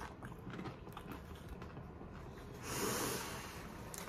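A person chewing a bite of egg roll with soft mouth noises, then, about three seconds in, one loud breathy exhale lasting about half a second.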